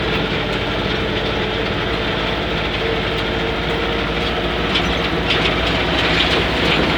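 LuAZ-969A's air-cooled V4 engine running steadily while the vehicle drives along, with a continuous clattering rattle over the engine hum.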